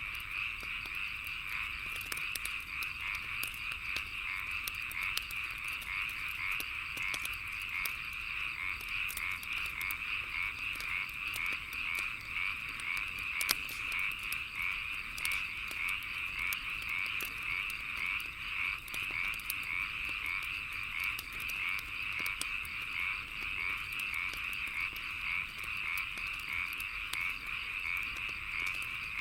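A dense frog chorus calling in a steady, fast-pulsing trill, with scattered crackles and pops of a wood bonfire over it; one pop about halfway through stands out louder.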